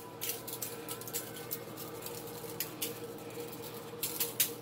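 Spice shaker shaken over raw pork chops in a foil pan, the seasoning falling in a run of light, irregular ticks and patters. A faint steady hum lies underneath.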